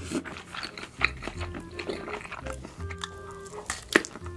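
Background music with held notes over close-miked eating sounds: wet mouth clicks and smacks, with a sharp bite into a sausage about four seconds in.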